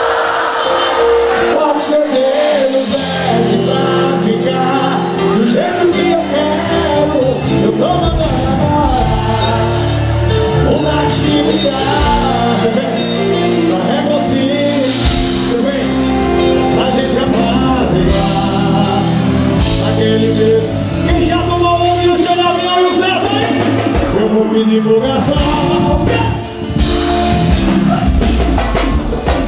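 Live forró band playing with a lead vocal, accordion and amplified bass and drums; the low bass and beat come in about three seconds in.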